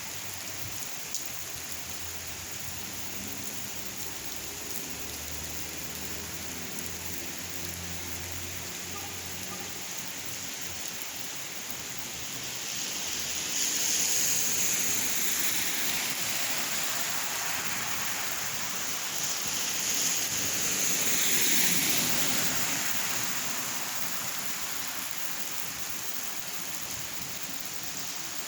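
Steady rain falling, an even hiss, with two louder swells that build and fade: one a little before halfway and another a few seconds later.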